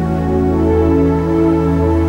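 Ambient background music: slow held chords over a steady low drone, with a new chord swelling in about half a second in.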